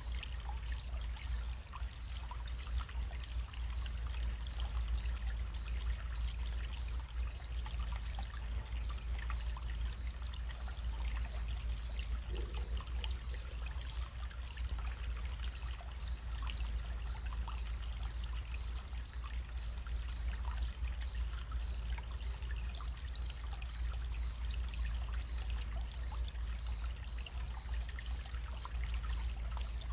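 Small stream running: water trickling and splashing steadily in many small splashes, over a steady low rumble.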